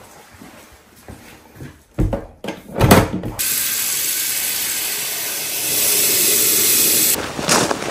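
A couple of clunks, then a bathroom fixture runs with a steady rushing hiss for about four seconds. Near the end the hiss loses its highest part and turns uneven.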